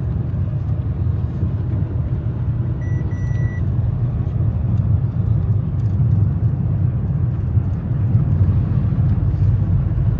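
Street traffic: a steady low rumble of vehicle engines, with a short high two-part electronic beep about three seconds in.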